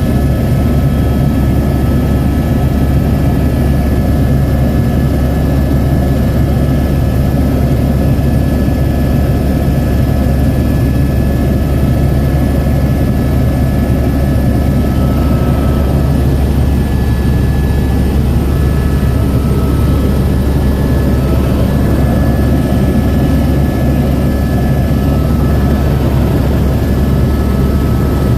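Helicopter in flight: a loud, steady drone of engine and rotor with a faint constant whine above it.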